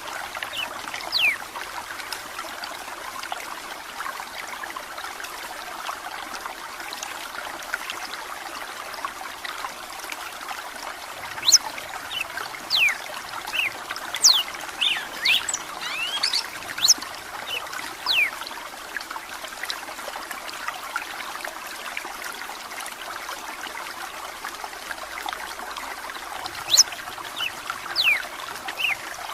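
Red-cowled cardinal (galo-de-campina) singing in bouts of quick, sharp, downward-sliding whistled notes, a short phrase near the start, a longer run about a third of the way in and another near the end, over steady trickling running water.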